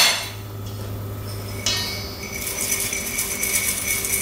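Mixed seeds being tipped from a small drinking glass into a stainless steel mixing bowl. A sharp clink of glass on metal about a second and a half in leaves a ringing tone, over a soft hiss of falling seeds.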